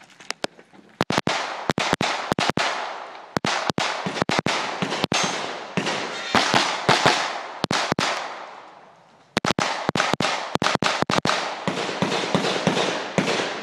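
Rapid gunfire: fast strings of shots, several a second, each ringing out with a short echo, with a brief lull about eight seconds in before another fast string.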